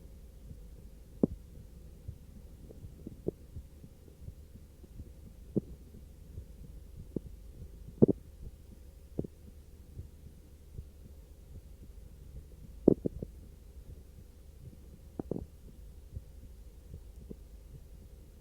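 Human heartbeat recorded after brief arm exercise, faint under a steady low hum and noise, with sharp, irregularly spaced clicks, the loudest about 8 and 13 seconds in.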